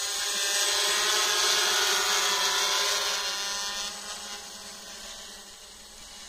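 Hexacopter drone's electric motors and propellers buzzing overhead as it climbs away. The steady buzz is loud for about three seconds, then fades steadily as the drone gains height.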